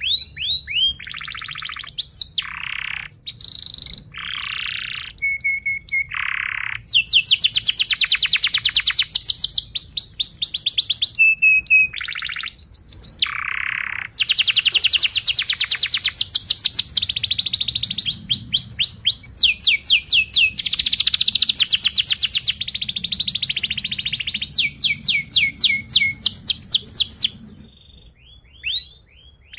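Domestic canary singing a long song: short broken phrases at first, then continuous fast rolls of rapidly repeated notes and buzzy trills, breaking off about two seconds before the end.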